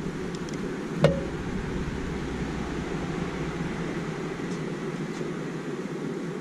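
Skil worm drive circular saw with a Diablo Steel Demon metal-cutting blade running steadily as it rips through quarter-inch steel plate. A single sharp click about a second in.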